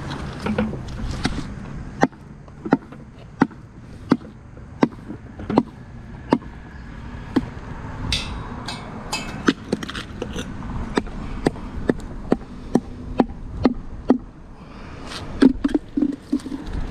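Sharp, hard knocks repeating about every 0.7 seconds for most of the stretch, over steady outdoor background noise, followed by a quicker cluster of knocks near the end.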